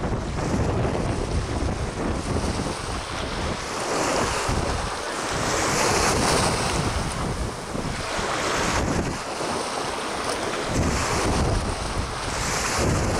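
Wind gusting across the microphone over choppy, lapping water. The rumbling noise swells and eases every few seconds.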